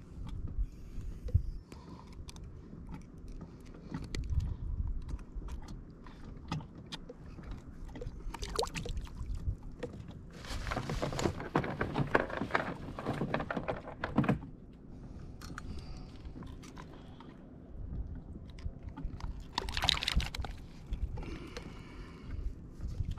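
Handling noises on a fishing kayak: scattered knocks and clicks on the hull and gear, with a longer stretch of splashing water from about ten to fourteen seconds in and a shorter splash near the end.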